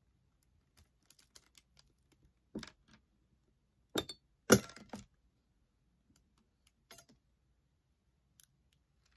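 Wire soap cutter being worked through a loaf of cold process soap: scattered clicks and knocks of the cutter's acrylic arm and the cut bars against the plastic base, the loudest a sharp knock about four seconds in and a cluster of knocks about half a second later.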